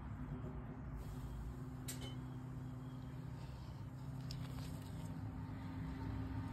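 Faint, steady low mechanical hum, like a distant running engine or machine, with a few soft clicks.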